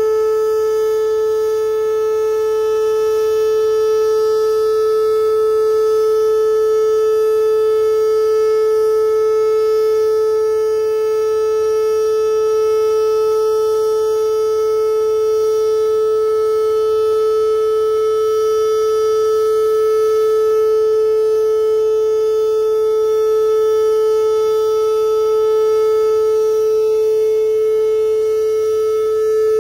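Pancake-style outdoor tornado warning siren sounding a steady tone during its monthly test, one unchanging pitch held throughout with only slight swells in loudness.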